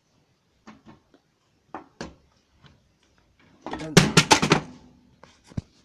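Handling knocks and clicks: a few faint taps, then a quick cluster of sharp clicks and knocks about four seconds in, the loudest part, and a single knock near the end.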